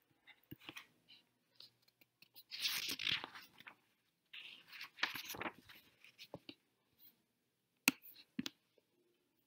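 Light taps of a stylus writing on a tablet screen, then two scratchy rustling noises of about a second each, and two sharp taps near the end.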